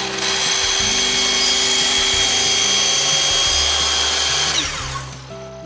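Hitachi table-top miter saw running at full speed with a steady high whine as its blade trims a thin slice off the end of a wooden board. About four and a half seconds in, the motor is released and winds down, falling in pitch.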